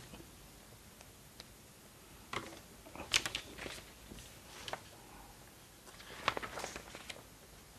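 Sheets of paper being picked up and handled, rustling in a few short bursts about two, three and six seconds in.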